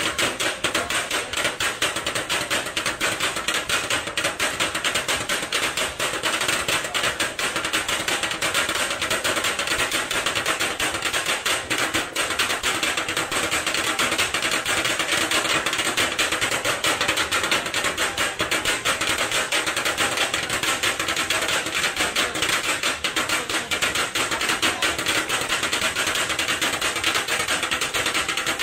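Rapid, unbroken metallic clatter of several cooks chopping kottu roti with pairs of flat steel blades on a griddle, the strikes overlapping into a dense rattle.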